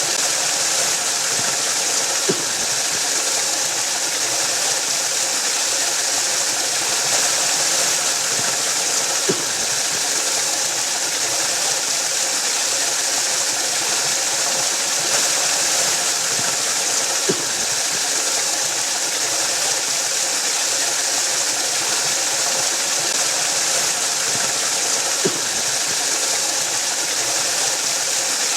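Waterfall rushing in a steady, even hiss, with four faint ticks about eight seconds apart.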